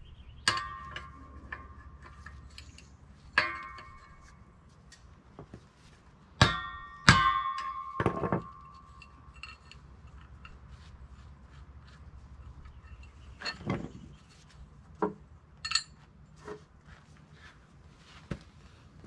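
Hammer blows on steel, driving a pressed-in bolt out of a Jeep XJ lower control arm suspension clevis. About five hard ringing strikes, the heaviest between six and eight seconds in, then lighter knocks and clinks.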